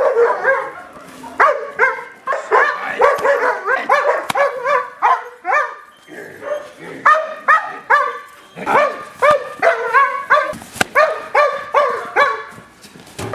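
Aggression-trained guard dogs barking hard and nonstop, about two to three barks a second, the barks overlapping at times.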